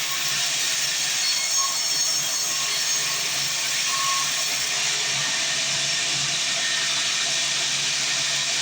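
Sawmill bandsaw cutting through a mahogany log: a steady, loud hissing rasp that does not let up.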